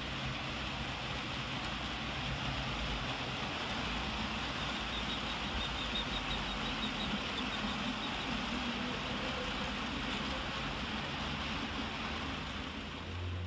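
OO gauge model freight train running along the layout: a steady running noise with a low hum, and a run of quick light ticks about five to eight seconds in as the wagons roll past.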